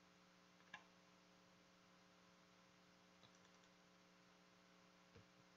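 Near silence: a steady low electrical hum with three faint clicks, the clearest about a second in.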